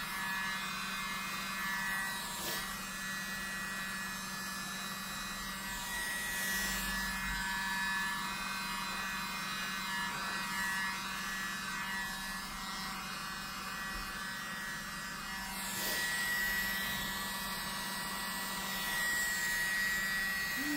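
A miniature handheld electric leaf blower runs steadily, blowing poured acrylic paint around on a wooden cutout. It gives a steady high whine over a rush of air, and the rush swells briefly a few times.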